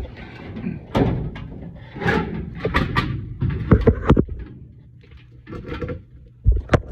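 Irregular metal clanks, clicks and knocks of a furnace blower motor assembly being handled and worked on with tools, the sharpest knock near the end.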